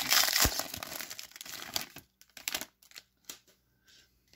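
Foil wrapper of a Donruss football card pack crinkling and tearing open for about two seconds. It then gives way to a few soft clicks and taps as the stack of cards is handled.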